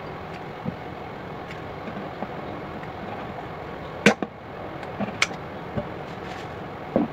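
Kitchen scissors snipping the claws off raw chicken feet: a handful of short, sharp snaps, the loudest about four seconds in, over a steady background hiss.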